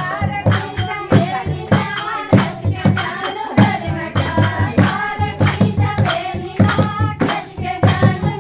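Kumaoni Holi song: voices singing over a steady drum beat.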